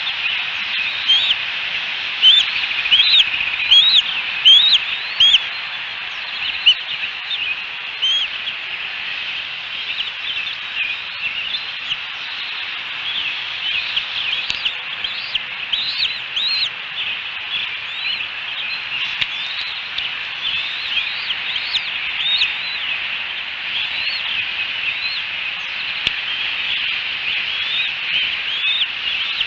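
Bald eaglet chicks peeping while being fed: quick runs of short, high, rising chirps, over a steady high hiss.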